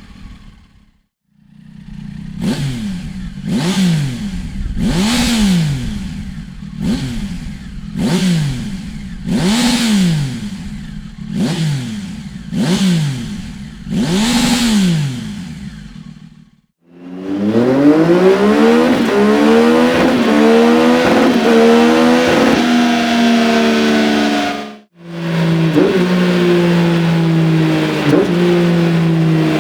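Triumph Tiger 800 inline-triple engine with a Dominator aftermarket exhaust silicer, first blipped repeatedly at standstill, each rev rising and dropping quickly. After a cut, the engine pulls under load with revs climbing steadily, then held high and slowly falling, as in a dyno run.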